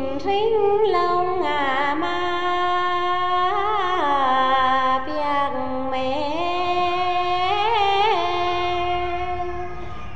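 Sli folk singing: a voice holding long drawn-out notes, wavering and sliding between pitches, with no beat behind it.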